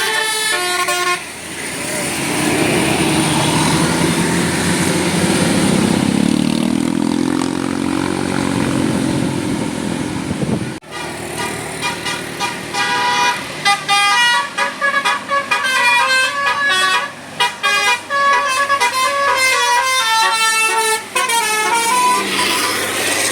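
Bus telolet horn, a multi-note air horn playing a quick tune of stepped notes, briefly at the start and again at length from about halfway through to near the end. In between, a bus engine's note rises as it pulls past.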